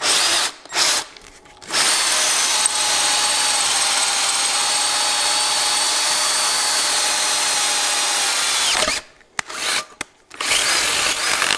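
Power drill boring through the rim of a sheet-iron frying pan: two short bursts, then a steady run of about seven seconds with a constant whine as the bit cuts the iron. It stops for about a second and starts again in short bursts near the end.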